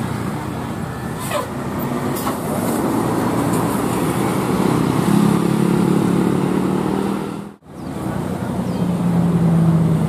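Large diesel tour buses and motorbikes passing round a bend, a steady low engine drone over road noise, with the sound dropping out briefly about seven and a half seconds in.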